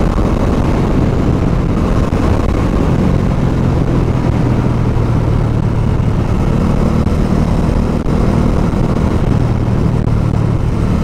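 Bajaj Dominar motorcycle's single-cylinder engine running steadily under way, its low note under a dense rush of road and wind noise. The engine note shifts a little about six seconds in.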